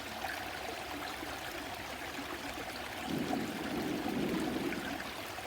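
Flowing stream, a steady rush of water, with a brief louder low swell about three seconds in.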